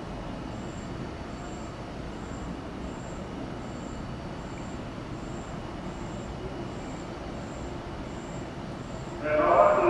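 Steady low hum of an empty Shinkansen station platform, with a faint high peep repeating a bit more than once a second. About nine seconds in, a loud public-address announcement starts.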